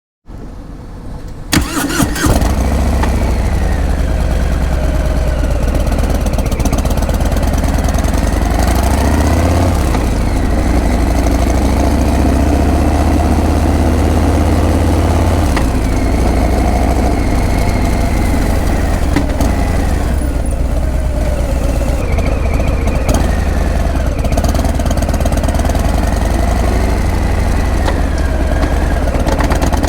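Harley-Davidson Breakout's V-twin engine being started: the starter turns it briefly, it catches about two seconds in, then idles steadily with a heavy low exhaust rumble.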